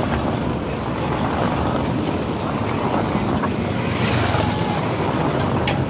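Race convoy vehicles passing close on a cobbled road: a team car's engine and tyres running over the cobbles, then a motorbike going past close about four seconds in, with a brighter hiss as it passes.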